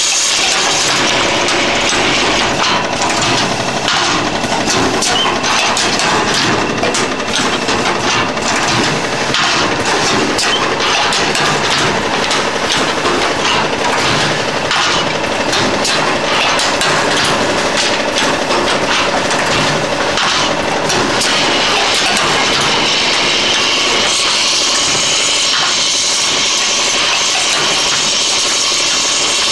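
Automatic thermocouple assembling machine running: a dense, irregular clatter of small parts over a continuous mechanical hiss. The hiss grows stronger about two-thirds of the way through.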